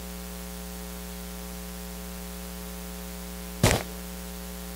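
Steady electrical mains hum with a faint static hiss from the sound system. One short, louder sound breaks in about three and a half seconds in.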